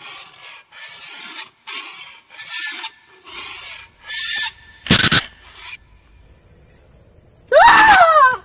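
A run of short rasping scrapes, about two a second, then a single loud sharp hit about five seconds in. Near the end comes a loud shriek that slides down in pitch.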